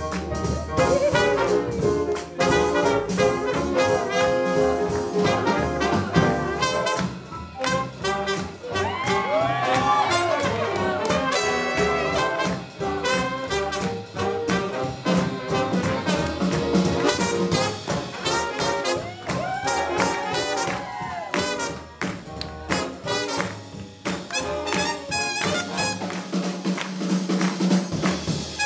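Live swing jazz band playing an up-tempo tune: saxophone and brass over drums and piano. The horns play swooping phrases that slide up and down twice, about a third and two-thirds of the way through.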